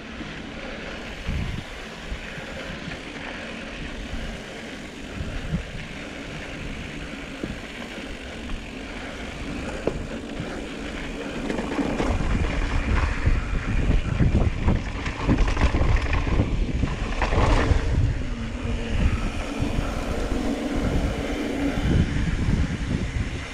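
Mountain bike descending a dirt trail: tyres rolling over dirt and rock and wind rushing over the mic, with a few knocks and rattles from the bike. The rumble gets louder and rougher about halfway through.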